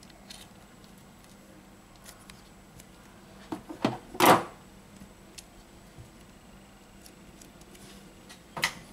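Small handling sounds as phone parts and tools are moved on a silicone repair mat: a few light clicks, then a short cluster of knocks with a louder clack about four seconds in, and another knock near the end.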